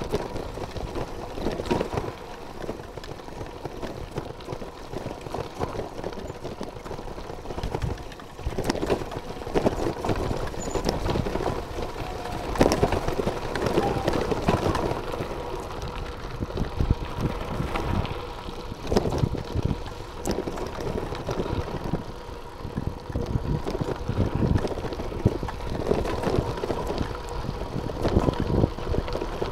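Bicycle riding over a rough gravel track: tyres crunching on loose stones and the bike rattling and knocking over bumps.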